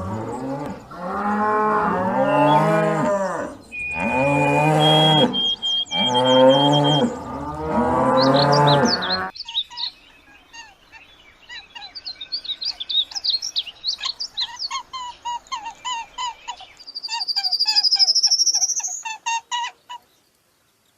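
Cows mooing: several long, drawn-out moos one after another. About nine seconds in they give way to a run of rapid, short high chirps, with a higher rising note near the end.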